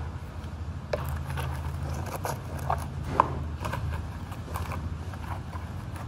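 Hands handling a cloth around a motorcycle engine: rustling with scattered light clicks and knocks, one sharper click about three seconds in, over a steady low hum.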